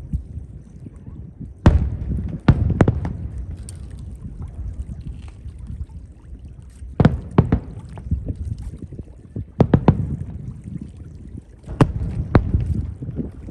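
Aerial fireworks shells bursting, recorded on a phone: sharp bangs in irregular clusters of one to three, with a low rumble and echo between them.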